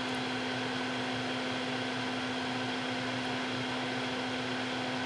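A steady machine hum, fan-like, with a constant low tone running under an even hiss.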